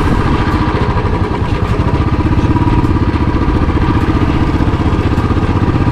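Royal Enfield Classic 350's single-cylinder engine running with a steady, rapid beat.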